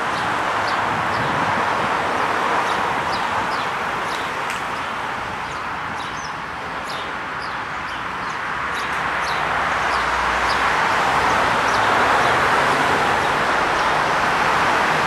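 Small birds chirping again and again, mostly in the first nine seconds or so, over a steady rushing noise that dips about six seconds in and builds again near the end.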